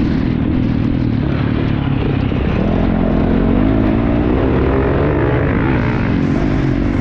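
Motocross motorcycles racing, their engines revving, with the pitch rising and falling continuously as the bikes accelerate and back off.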